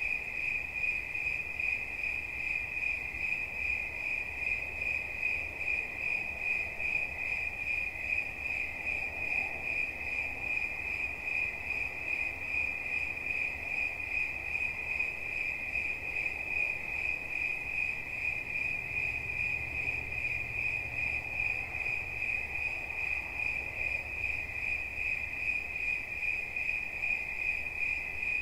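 A cricket chirping continuously: a high, steady trill that pulses rapidly and evenly.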